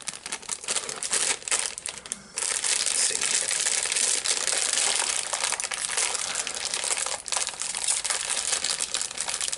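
Crinkly plastic sweet bag crackling and crumpling in the hands as it is torn open, tearing awkwardly, with a brief lull about two seconds in.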